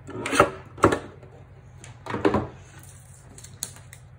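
A few sharp clunks and clacks from card-trimming tools being worked and set down on a wooden table. The loudest come about half a second and a second in, then a pair just past two seconds, with light ticks near the end.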